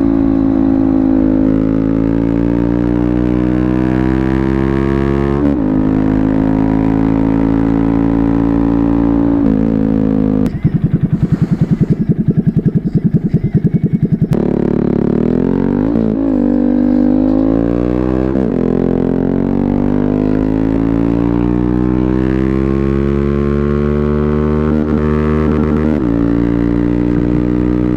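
Honda Grom's 125 cc single-cylinder engine running hard under way, its note climbing slowly and dipping sharply several times before climbing again. From about ten to fourteen seconds in, it gives way to a low, rapid pulsing.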